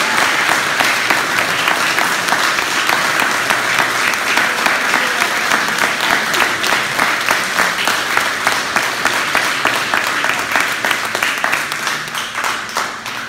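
A roomful of people clapping in sustained applause, which thins out and dies away near the end.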